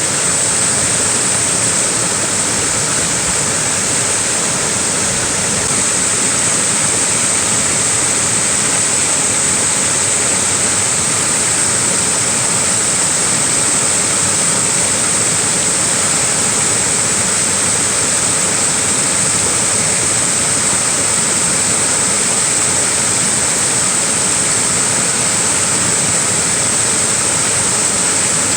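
Small waterfall splashing and rushing in a steady, unbroken roar of falling water, with a bright hiss in the high end.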